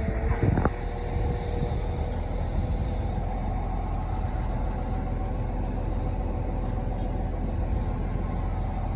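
Excavator's diesel engine running steadily, a low rumble with a faint steady whine above it. A couple of short knocks come in the first second.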